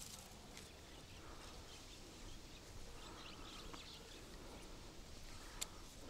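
Faint outdoor ambience with small birds chirping here and there, and one sharp click near the end.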